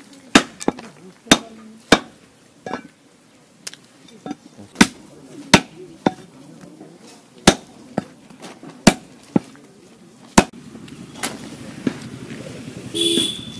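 A large knife chopping lamb meat and bone on a wooden chopping block: sharp, irregular chops, one or two a second, for about ten seconds.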